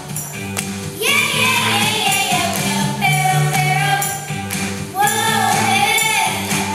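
Upbeat song with singing voices over a steady bass line and jingling percussion; the sung lines come in about a second in and again around five seconds.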